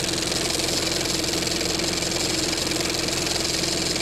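Film projector sound effect: a steady mechanical whirring clatter with a hum and heavy hiss, going at a fast even rate.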